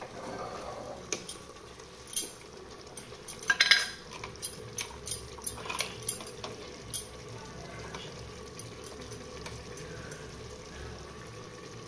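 A metal spoon clinking and scraping against a tin of ghee as ghee is scooped out, in a string of sharp clicks with the loudest cluster about three and a half seconds in. Under it is a steady low sound of the pot frying.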